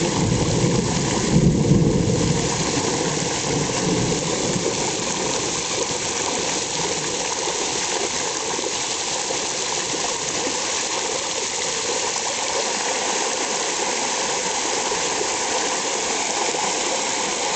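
Heavy rain falling and floodwater streaming along a paved street, a steady even wash of noise, briefly a little louder about a second and a half in.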